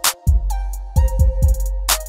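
Background music with a drum beat: deep bass notes and sharp snare-like hits under a melody.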